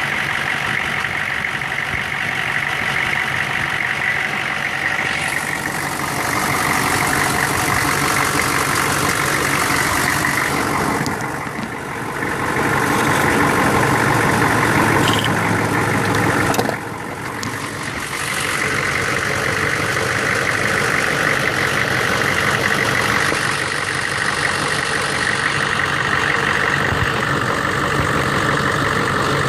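1999 Chevy 6.5-litre V8 diesel engine running unevenly with a failing fuel injection pump. It turns brighter about five seconds in, dips briefly near twelve seconds, grows louder, then drops off abruptly near seventeen seconds before building back.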